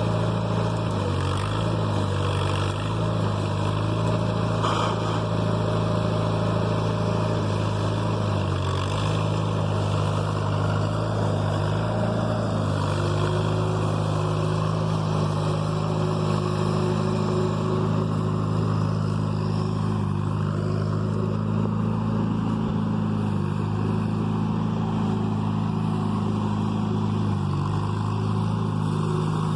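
Backhoe engine running steadily, its pitch stepping up and down a little several times as the throttle or load changes.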